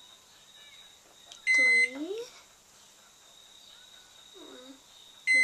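Microwave oven keypad beeping as the cook time is set: one loud, steady, high beep about a second and a half in, and a second short beep at the very end. A short rising vocal sound runs under the first beep, and another comes shortly before the last one.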